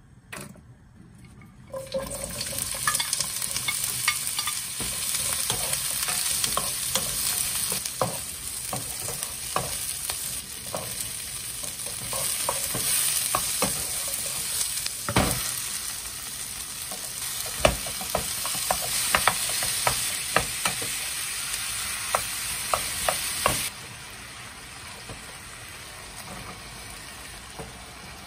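Diced onion and carrot sizzling in hot oil in a nonstick wok while a wooden spatula stirs them, knocking against the pan over and over. The sizzle starts about two seconds in and drops suddenly to a quieter hiss near the end.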